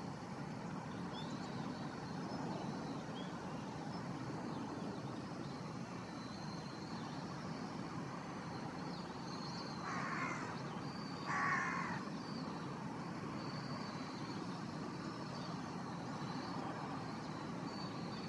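A crow caws twice, about ten seconds in, in two short harsh calls close together. Under it runs a steady low background rumble.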